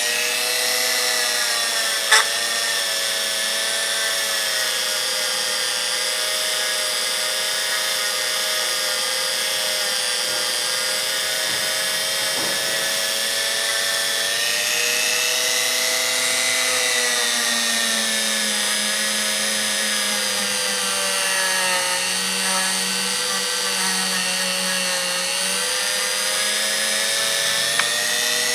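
Small high-speed electric power tool motor running steadily, its pitch sagging and recovering slightly as it is worked against the ratchet parts, cleaning off old dried grease. A short click about two seconds in and another near the end.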